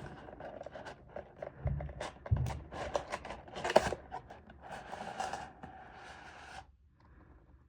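Watch packaging being handled and opened by hand: irregular scrapes, clicks and rustles, with two dull thumps about two seconds in. The handling stops abruptly near the end.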